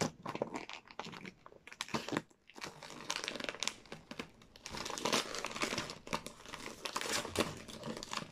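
Wrapping paper crinkling and tearing as a gift is unwrapped by hand, in irregular rustles that get busier about halfway through.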